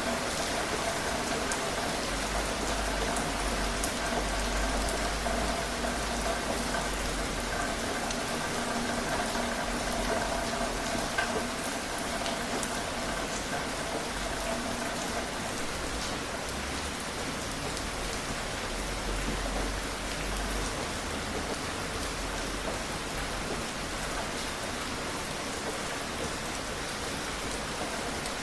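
Steady rain falling: an even hiss scattered with the ticks of single drops. A faint steady hum sits under it for the first half and fades out about halfway.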